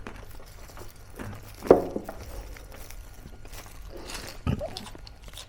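Eating sounds from crispy fried pork mesentery (chicharong bulaklak): scattered small crunches and clicks of chewing, with a sharper, louder sound about two seconds in and another near the four-and-a-half-second mark.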